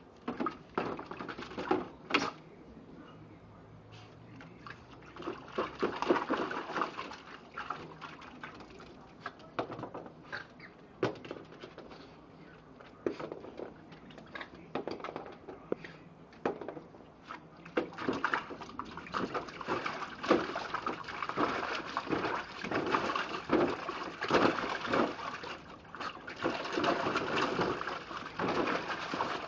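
Water splashing as a small dog paddles and stamps in a plastic kiddie pool, in irregular bursts that get busier and more continuous in the second half.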